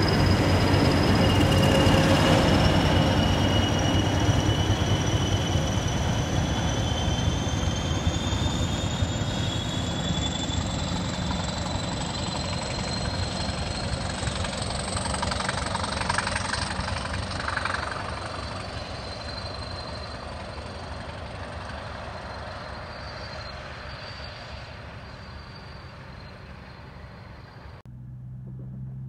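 A freight train of tank wagons rolls past on the rails with a high wheel squeal that slowly rises in pitch, the rumble and squeal fading as the train moves away. Near the end the sound cuts abruptly to a low steady hum.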